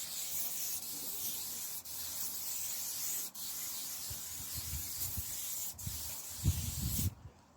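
Polishing a bicycle frame with silicone shine: a steady hiss with a few brief breaks, and some low bumps near the end.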